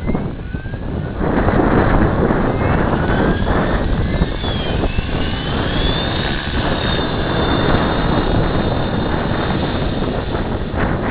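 Logo 600 electric RC helicopter with a Scorpion 4035 motor running, its rotor noise jumping louder about a second in. High-pitched whining tones rise in pitch over the first several seconds: a squeal that gets worse with collective pitch, which the owner suspects is a bad bearing.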